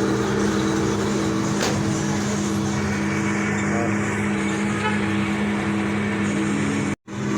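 General Electric washing machine running with a steady motor hum after its transformer repair, showing it now powers on. The sound cuts out for a split second near the end.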